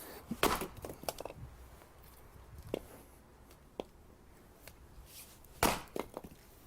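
A few scattered short knocks and rustles, the loudest about five and a half seconds in, followed by a couple of quicker clicks.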